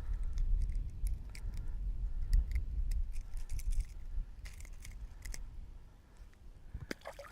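Scattered light metallic clicks and clinks of a jerkbait's treble hooks being handled as the lure is worked free of a small bass, over wind rumbling on the microphone that eases off in the second half.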